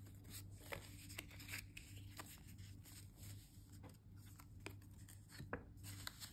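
Faint rustling and crinkling of paper banknotes being handled and slid into a paper cash envelope, with scattered soft ticks, over a steady low hum.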